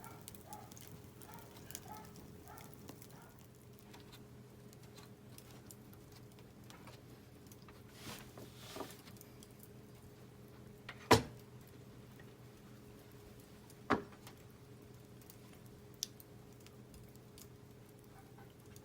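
Scrap softwood (SPF lumber) fire crackling with sparse faint clicks, and two sharp, much louder pops about eleven seconds in and three seconds later, then a smaller one.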